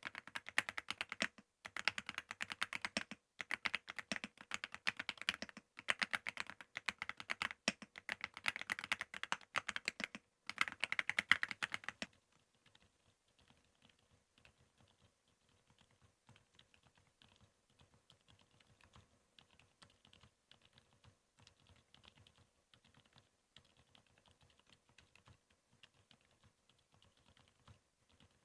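Typing on mechanical keyboards: fast, loud bursts of key clacks on an Aula F65 with short pauses. About twelve seconds in, it switches to a Luminkey75, whose typing is much quieter and continues steadily.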